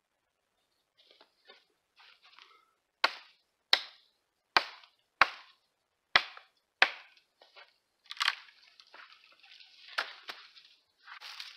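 A hatchet chopping into a sapling: six sharp strikes about two-thirds of a second apart, after faint rustling. Then rustling brush and two louder cracks as the wood is worked free.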